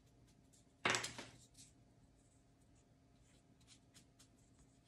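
Faint scratching and dabbing of a small paintbrush as paint is touched into spots on a craft piece, with one brief louder scuff about a second in.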